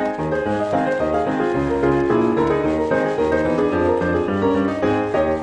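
Piano music playing a quick succession of notes over a bass line.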